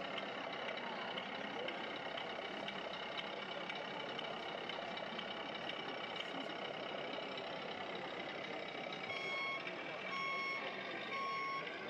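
Hubbub of a crowded hall with indistinct chatter, joined about nine seconds in by a steady run of repeated electronic beeps, like a vehicle's reversing alarm.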